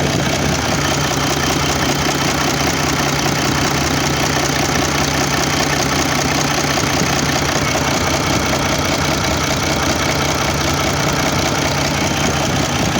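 Mercedes-Benz OM401 V6 diesel engine idling steadily with a dull knock, the fault whose cause is being sought.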